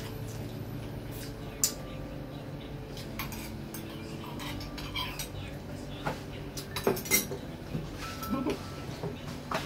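Metal spoons clinking and scraping against ceramic soup bowls while eating, in scattered sharp clinks, the loudest few coming about seven seconds in.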